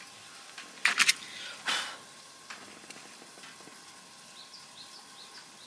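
A few sharp clicks and knocks with a short rustle around one to two seconds in. Near the end comes a quick run of faint, high bird chirps over quiet outdoor background.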